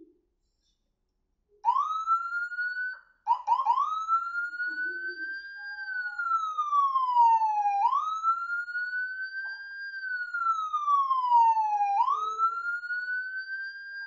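Locally made Whelen-style electronic siren, starting about a second and a half in with a short rising tone and three quick chirps, then sounding a wail: the pitch climbs slowly, falls back, and jumps up again, about four seconds per cycle.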